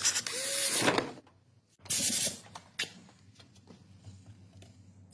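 Two bursts of hissing spray, the first about a second long and the second shorter, followed by a few light clicks and knocks of tools and parts.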